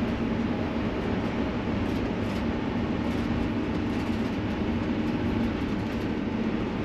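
Steady road and engine drone heard inside the cab of a Ford V10-powered motorhome cruising at highway speed, with an even low hum and no changes.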